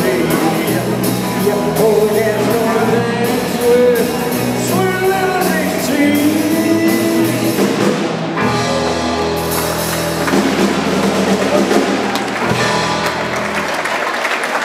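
Live rock band playing: electric guitars, bass and drum kit under a male lead vocal. Near the end the song winds down and the audience starts to applaud.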